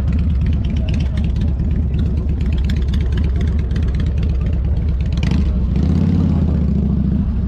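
Motorcycle engine running close to the microphone, a dense low pulsing beat, with a brief rising swell of noise about five seconds in.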